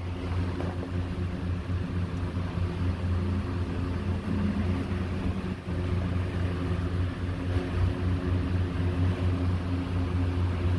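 A steady low mechanical hum, a deep drone with no break.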